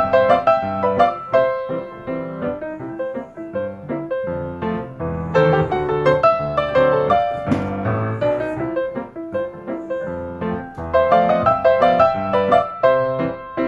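Background music led by piano, with a quick run of notes that eases off in the middle and picks up again near the end.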